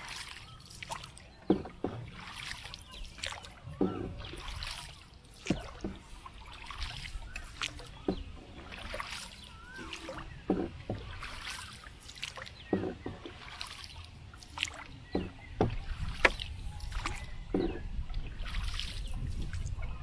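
Wooden boat being paddled: water sloshes and splashes with the strokes, and sharp wooden knocks come about every one to two seconds as the bamboo paddle works against the boat.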